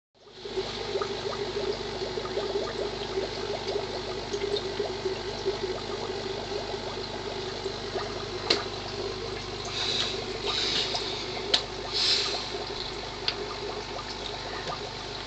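Aquarium water trickling and splashing steadily. A few sharp knocks and short rustling bursts come between about eight and twelve seconds in.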